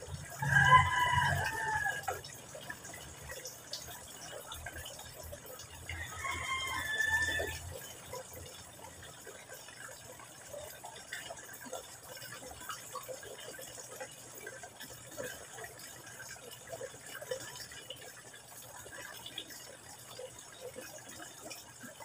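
Thin stream of water from a hose outlet falling into a garden pond, a faint steady trickle and splash. Twice a chicken calls loudly: near the start, and again about six seconds in.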